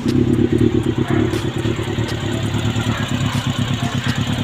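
Freshly rebuilt Honda CB400 engine idling steadily, with a light ticking from the top of the engine that the owner thinks may be new parts not yet fully seated.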